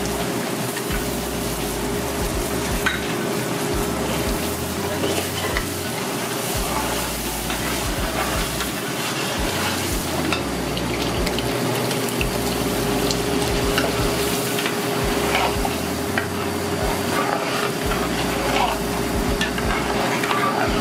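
Spiced oil and chilli paste sizzling and bubbling in an aluminium stockpot while a metal ladle stirs it, with scattered crackles and ladle clinks against the pot. A steady hum runs underneath.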